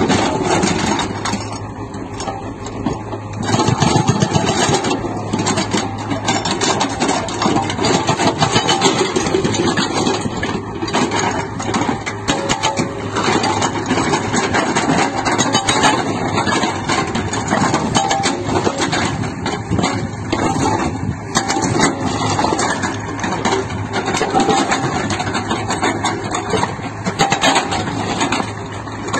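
SSI SB43 hydraulic breaker on a Hyundai R-80 excavator hammering rock: a rapid, continuous run of chisel blows over the excavator's diesel engine running under load.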